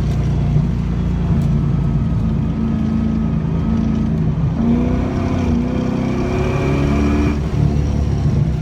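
LS1 V8 engine of a BMW 318ti running hard on a race track, the engine note steady for about four seconds, then rising and falling for about three seconds before steadying again.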